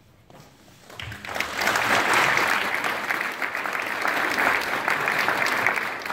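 Audience applauding, a dense patter of many hands clapping that starts about a second in.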